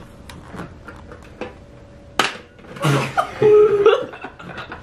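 A few faint clicks from a Pie Face-style game's handle being turned, then a sharp snap as its spring-loaded hand flings whipped cream into a face, followed by a short cry and laughter.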